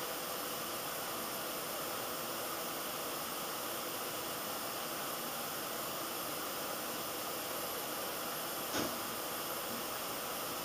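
Steady hiss of room tone and recording noise, with one short click near the end.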